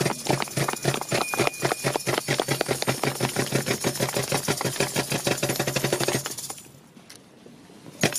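Horse-drawn carriage passing over cobblestones: rapid, irregular clatter of hooves and rattling wheels over a steady low hum, dying away about six seconds in. One sharp knock near the end.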